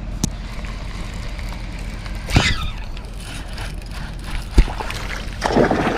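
Water splashing and sloshing against a fishing boat, with a sharp click near the start and a knock about four and a half seconds in, over a steady low rumble.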